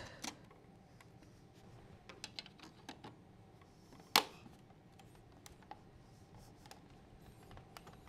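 Faint, scattered small clicks and taps of a screwdriver and plastic parts as a wall plate is fitted over light switches, with one louder snap about four seconds in as the white screwless cover plate is pressed onto its sub-plate.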